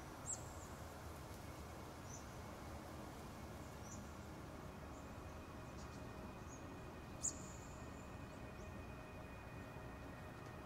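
Faint ambient soundscape: a low, steady hiss and hum with a few short, high chirps scattered through it, the loudest about seven seconds in.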